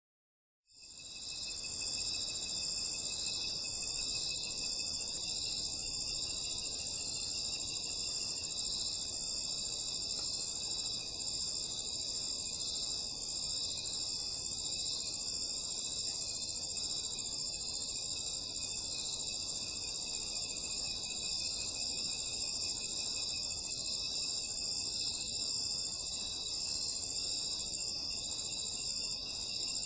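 Night chorus of crickets and other insects: several steady high-pitched trills at different pitches, one of them pulsing, over a faint low hiss. It fades in within the first second.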